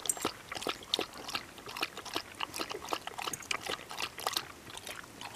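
A blue heeler (Australian cattle dog) lapping water from a plastic scoop: quick, irregular wet laps, several a second.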